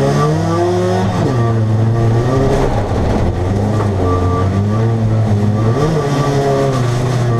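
Folkrace car's engine heard from inside its stripped-out cabin, racing hard. Its pitch climbs and falls back several times as the car accelerates and the gears change.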